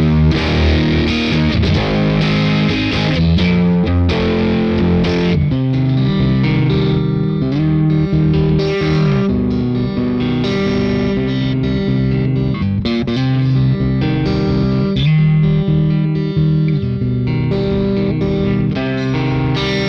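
Electric guitar played through a JHS Clover preamp boost pedal into a Fender '65 Deluxe Reverb amp, giving a fat, lightly driven tone. Chords are struck in the first few seconds, then notes and chords are left to ring.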